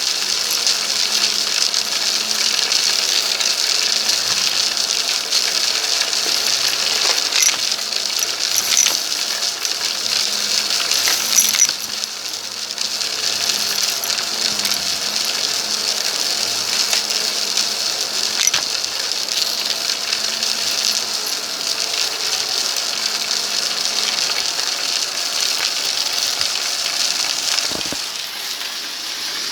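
Vacuum cleaner picking up a sandy debris mix from a rug: a steady motor and airflow hiss with grit crackling and ticking up the hose. It dips briefly about twelve seconds in and again near the end.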